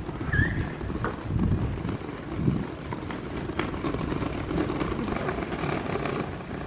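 Outdoor street noise: a steady low rumble with irregular surges, like wind buffeting the microphone while walking.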